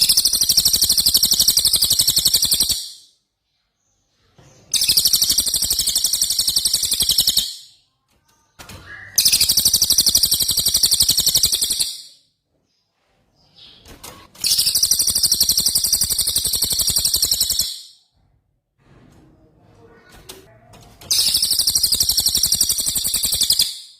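A songbird's rapid rolling trill ('rol tembak'), a fast, high-pitched stream of repeated notes. It comes in five bursts of about two to three seconds each, separated by short silences.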